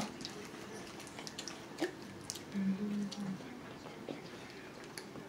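Quiet eating sounds at a table: scattered small clicks and mouth noises from chewing, with a short low hum about two and a half seconds in.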